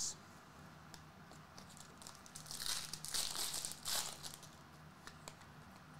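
Foil trading-card pack wrapper crinkling as the cards are pulled from it and handled, with a few louder rustles in the middle.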